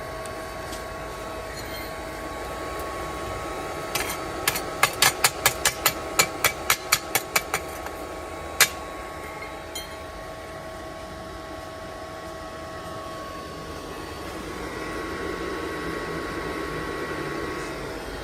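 Suzukid SIM-120 DC inverter welder powered up, running with a steady whine and cooling-fan hum. About four seconds in comes a quick series of about a dozen sharp taps, roughly four a second, followed by one louder click a second later.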